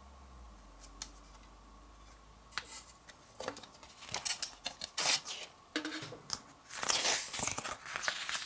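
CD album packaging being handled: a quiet start, then scattered clicks and short rustles from a few seconds in, turning into a denser rustling near the end.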